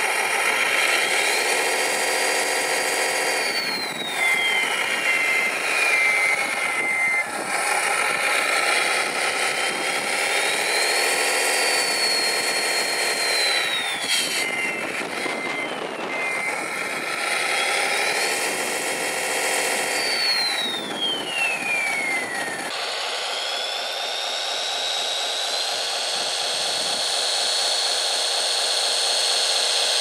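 Radio-controlled Mercedes-Benz Actros 6x6 model truck's motor whining, rising in pitch as it speeds up, holding, then falling as it slows, three times over, with two short runs of evenly spaced beeps. Near the end it gives way abruptly to a different steady whine that climbs and levels off.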